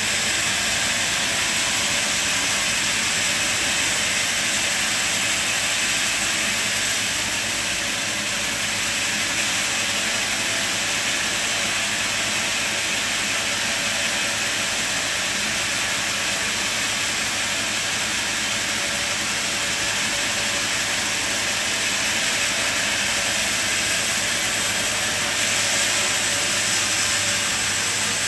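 Sawmill running steadily: a constant loud hiss over a low, even hum, with no breaks.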